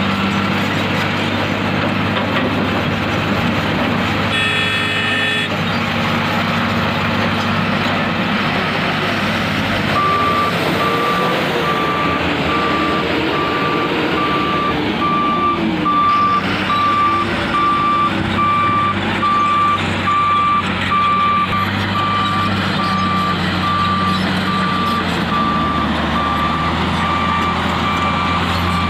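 Heavy diesel engines of mining machinery running steadily, with a reversing alarm beeping about once a second from about ten seconds in. A short, brief horn-like tone sounds once about five seconds in.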